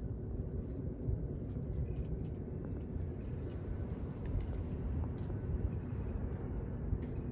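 Wind buffeting the microphone in an uneven low rumble, with scattered small clicks and rustles as a toy poodle tugs and chews at the twigs of a small conifer.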